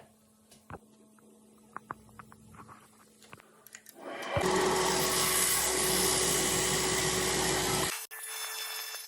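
A few faint clicks, then a Wadkin RS woodworking lathe starts up about four seconds in and runs loud and steady with a held tone. The sound drops off sharply near the end.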